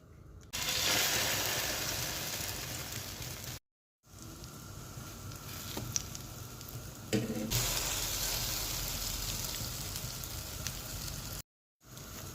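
Bread soaked in beaten egg sizzling as it fries in a pan. The sizzle starts about half a second in, drops out suddenly twice, and has a couple of brief knocks near the middle.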